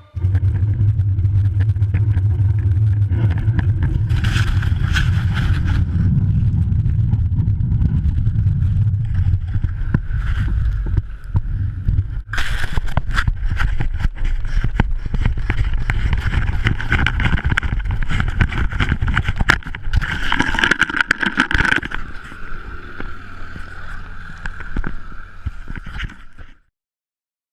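A motor running steadily with a constant whine over a heavy, fluttering low rumble; it cuts off abruptly near the end.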